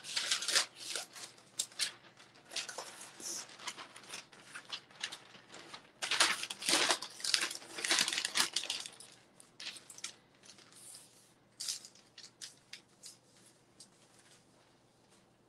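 Paper sheets rustling and crinkling in bursts as they are handled, loudest about halfway through, then scattered light snips of scissors near the end.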